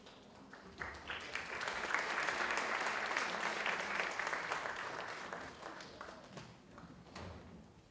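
Audience applauding: clapping swells about a second in, holds, then fades away over the last few seconds.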